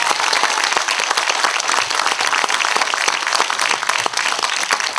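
Audience applauding: a steady round of clapping from a seated crowd.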